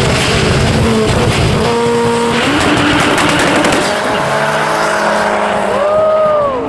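Drag-race launch of two VW Golfs at full throttle: the 2.0-litre 16V turbo engine of the 1056 hp Golf Mk1 pulls away and its pitch steps as it shifts up. A Golf Mk4 launches with tyres squealing and spinning, and near the end an engine rises and falls in pitch.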